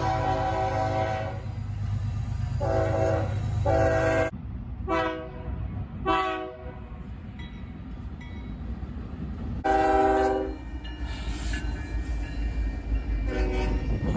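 Locomotive air horn sounding a series of blasts, each a chord of several tones. The first ends about a second in, four short blasts follow, then a longer blast near ten seconds and another near the end, over the low rumble of the locomotive.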